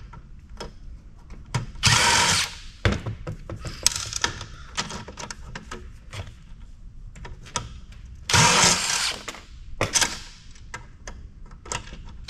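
Cordless impact driver run in short bursts of about half a second to a second, a few times, backing out a nut or screw in a metal electronics chassis. Small metallic clicks and knocks of handling come between the bursts.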